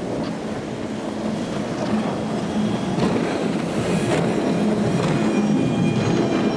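Twin outboard engines of a Brabus Shadow 900 running at speed: a steady engine drone with the hull rushing through the water, growing louder as the boat comes close.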